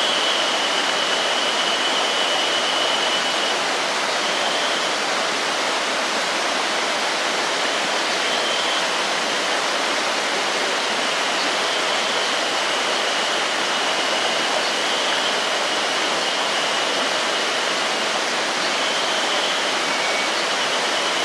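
River water flowing past, a steady rush with no break. A faint, thin high tone comes and goes a few times over it.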